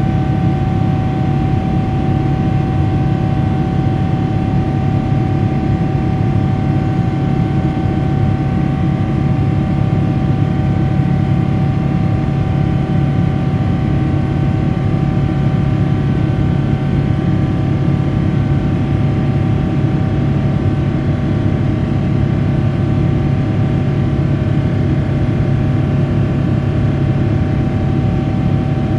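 Boeing 777-300ER's GE90 turbofan engine running at climb power, heard inside the cabin next to the engine: a steady loud rumble and rush with a steady droning tone from the fan over it.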